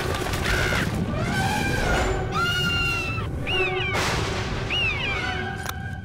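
A heavy, continuous rumble and crash of churning water, with high wailing cries that rise and fall over it several times.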